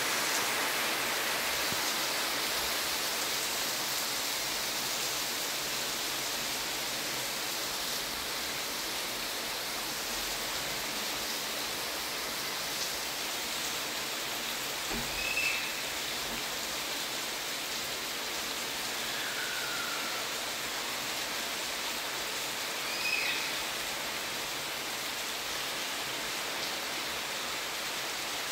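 Heavy rain falling steadily, an even hiss. A few short high chirps come through it about halfway through and again later on.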